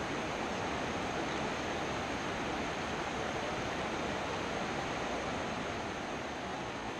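Steady rush of a rocky mountain trout stream flowing over rocks and riffles, an even, unbroken water noise.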